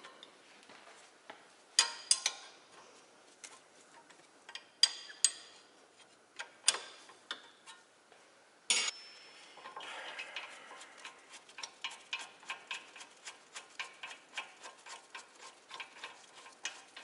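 Socket ratchet on a brake caliper bracket bolt: a few sharp metal clanks of the tool on the bolt, then from about ten seconds in a fast, even ratchet clicking, about four clicks a second, as the bolt is run out.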